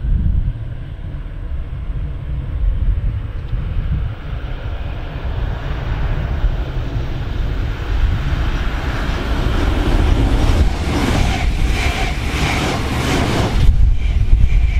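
RRX Siemens Desiro HC double-deck electric multiple unit approaching and passing close by at speed: a rush of wheels and air that grows steadily, turning in the last few seconds into a rapid run of clacks as the bogies pass. Wind buffets the microphone throughout.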